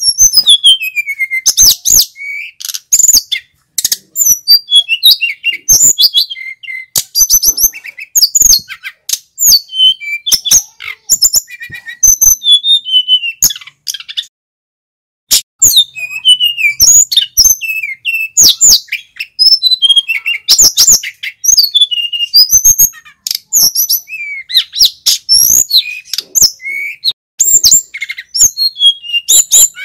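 Male sikatan gunung (a flycatcher) singing in full voice: fast, varied phrases of high whistles, trills and chirps follow one another almost without a break, with one short pause about halfway through.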